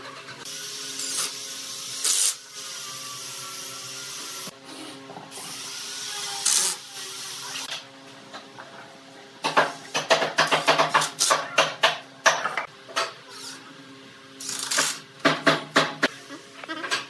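Cordless drill driving screws into a pine frame post: a long noisy run in the first half, then two spells of fast rattling clicks, about ten and fifteen seconds in.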